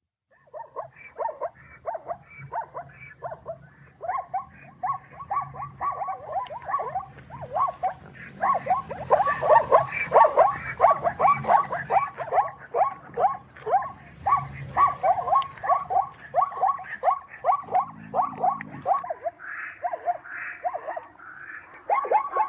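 Adult zebra barking: a long run of short, pitched calls, about three or four a second, in bouts broken by brief pauses, loudest around the middle.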